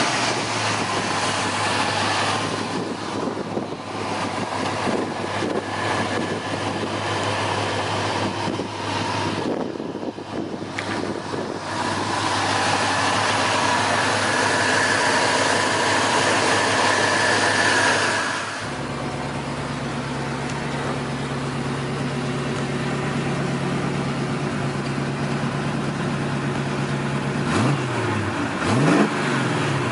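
A 1979 Pontiac Trans Am's V8 engine running steadily. Its note drops and changes about two-thirds of the way through, and it is blipped twice in quick rises and falls near the end.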